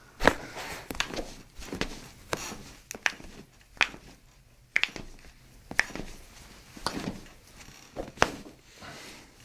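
A series of short, sharp clicks and taps, irregularly spaced at about one a second, with faint rustling between them, from handling during a chiropractic adjustment.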